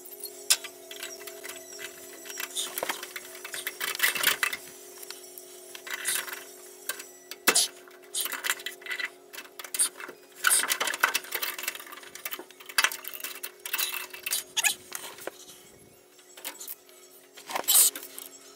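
Hand tools working on rusty steel brake-line fittings: a wrench and locking pliers clinking, clicking and scraping against the metal in irregular bursts. A few sharper clacks come about halfway through and again near the end, over a steady hum.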